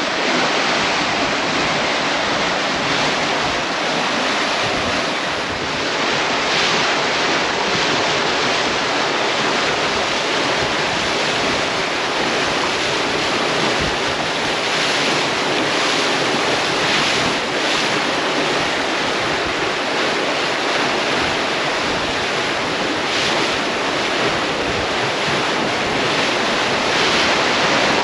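Sea water rushing and splashing past a sailing catamaran's hull while it is under way, surging louder every few seconds. Wind blows on the microphone.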